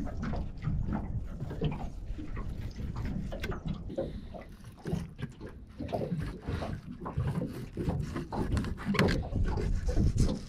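Filleting knife slicing and scraping through a fish on a plastic cutting board: a run of irregular short wet cuts and scrapes over a steady low rumble.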